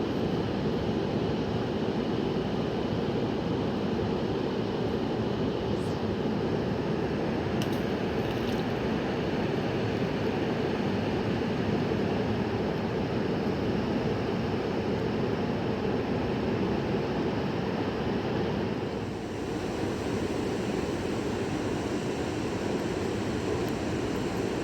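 Steady rushing of a fast-flowing river, an even wash of water noise without a break.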